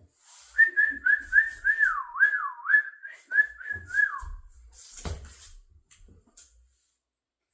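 A person whistling a short tune: a run of quick notes with a few swooping dips, over light clicks and rustling from handling parts, with a thump about five seconds in.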